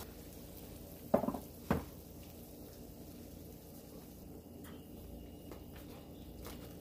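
Two sharp metal clanks about half a second apart, the first ringing briefly, as the baking tray and oven rack are handled. A faint steady hiss lies underneath.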